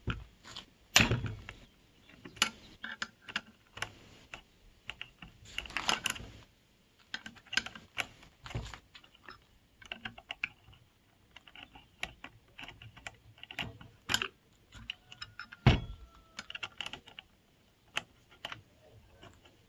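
Irregular clicks and light knocks of hands handling a small cordless circular saw and its loose parts, with no motor running. The loudest knocks come about a second in and near the end.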